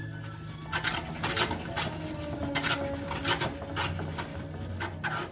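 Wooden pet exercise wheel scraping and rubbing as a puppy moves on its track, in short irregular rasping strokes roughly twice a second.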